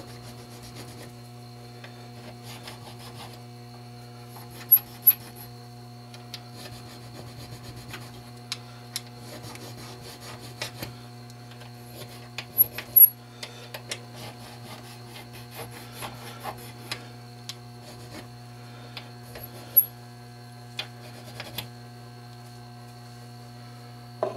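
A hard sharpening stone rubbed back and forth by hand over the tops of steel percussion-cap nipples clamped in a bench vise, smoothing them after they have been filed down. The scraping rub is broken by several sharp clicks of the tool against the metal, the loudest about 5, 13 and 20 seconds in, over a steady hum.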